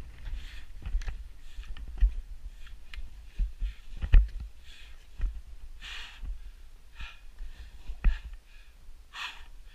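A climber's heavy breathing, hard breaths every second or two, with knocks and scrapes of hands, knees and gear against rock as he crawls along a rocky knife-edge ridge; the loudest knock comes about four seconds in.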